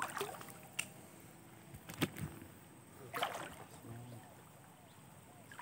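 A few faint, irregular splashy footsteps through shallow floodwater on wet ground, with a short sharp one about two seconds in and another about a second later.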